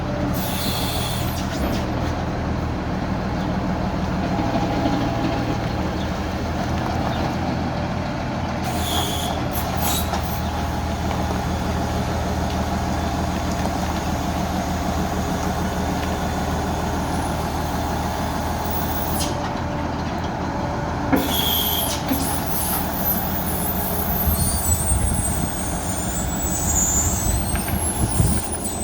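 Tractor engine running steadily, with three short hissing bursts and a faint high squeal near the end.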